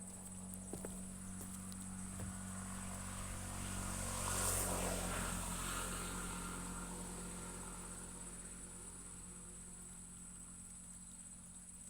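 A passing engine that swells to its loudest about four and a half seconds in and then slowly fades away, over a steady high insect-like drone.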